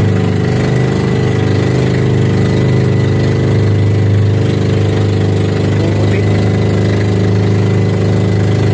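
A motorized outrigger boat's engine running steadily.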